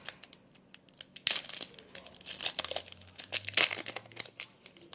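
Foil wrapper of a Pokémon Trading Card Game booster pack being torn open and crinkled by hand, a run of sharp crackles, loudest about a second in and again around three and a half seconds in.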